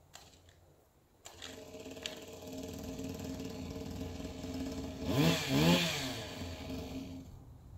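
Small two-stroke engine of a gas GoPed scooter running, coming in about a second in, then revving up and down twice just past the middle, which is the loudest part, before it fades away.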